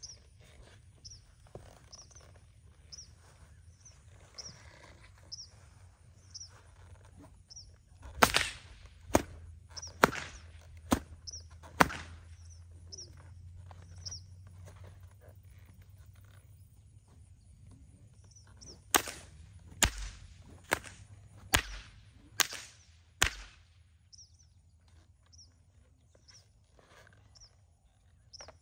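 A whip popped sharply around a horse: five cracks about a second apart, then after a pause six more. A faint high chirp repeats steadily underneath.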